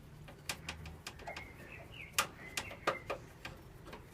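Scattered light clicks and taps, several a second apart, of a desktop computer's metal case and card parts being handled as a PCI card is worked loose.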